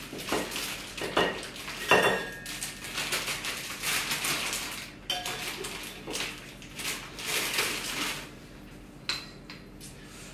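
A spatula scraping and clinking against a stainless steel mixing bowl as meringue is moved into a plastic piping bag. There is a sharp knock about two seconds in, and it quietens after about eight seconds.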